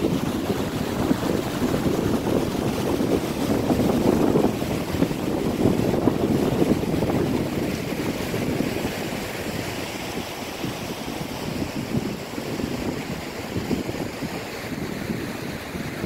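Steady rushing of a rocky mountain stream, with wind buffeting the microphone. It eases slightly about halfway through.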